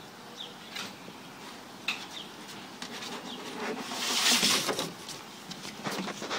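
A bulldog puppy sliding down a plastic toddler slide: a brief swishing rush about four seconds in as it goes down, then a few light knocks as it lands on the wooden deck. Birds chirp in short notes throughout.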